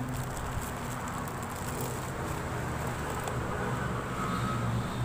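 Steady low mechanical hum, with faint light clicks in the first three seconds.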